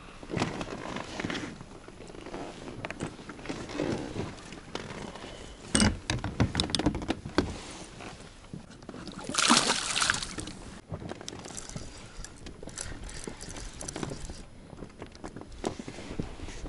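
Water splashing and sloshing with irregular knocks and clicks of handling in a small boat as a small bream is landed, with a louder splash about ten seconds in.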